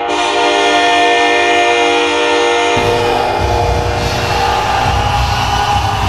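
Hockey arena goal horn sounding a steady multi-tone chord. About three seconds in it gives way to a bass-heavy goal song.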